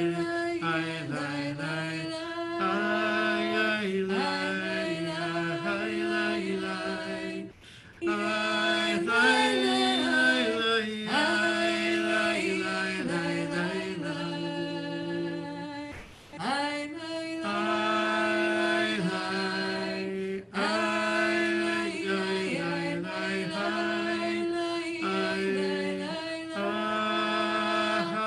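A wordless Jewish nigun sung unaccompanied: a slow melody of long held notes, with short pauses for breath about a third and about halfway through.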